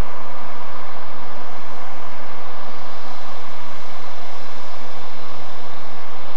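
Freight train passing behind two New Zealand Railways EF class electric locomotives: a steady rumble and hum of the locomotives and wagons running by.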